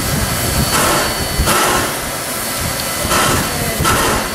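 South Australian Railways 520 class steam locomotive 621 close by, giving short whooshes of steam at uneven intervals over a low rumble, with a faint steady high whine.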